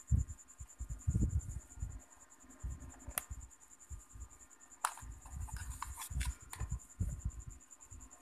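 Handling noise: irregular rubbing and low knocks, with a few sharp clicks about three, five and six seconds in, over a steady faint high-pitched tone.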